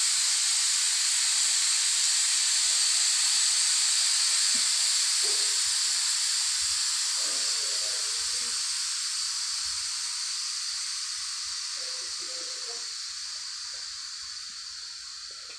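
A loud, steady hiss of pressurised air escaping, which slowly dies away over the second half as the pressure drops.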